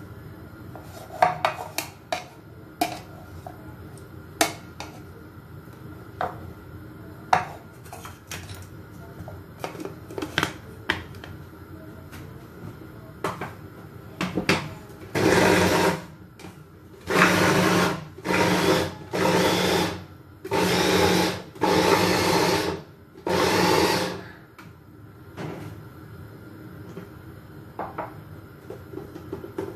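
Metal spoon clinking and knocking as boiled green chilies are scooped into a blender jar. Then an electric blender is pulsed in about six short bursts of roughly a second each, coarsely grinding the cooked chilies for green sambal.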